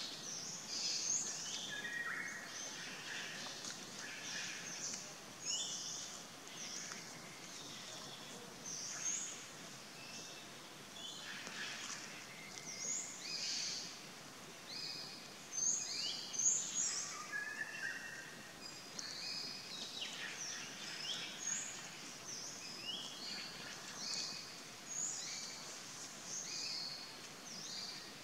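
Tropical forest ambience: many wild birds chirping and calling, with short high calls, some sliding in pitch, overlapping over a faint steady hiss.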